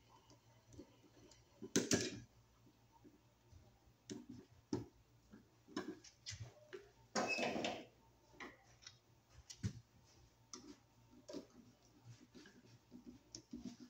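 Small metal clicks and taps of needle-nose pliers and a screwdriver working a wire loop around a receptacle's brass terminal screw, with a louder click about two seconds in and a longer handling noise around seven seconds in.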